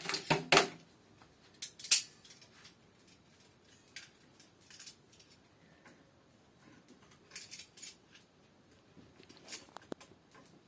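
Small metal tools and faucet fittings clinking and rattling against each other in scattered bursts during a tap washer repair, loudest in the first second and with a sharp knock about two seconds in. One clink near the end rings briefly.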